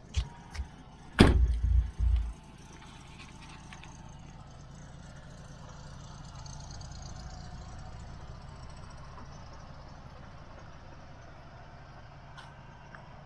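A car door, the 1997 Dodge Viper GTS's, slammed shut with one loud, sharp thud about a second in, after a couple of light clicks and followed by a short low rumble, then a faint steady background hum.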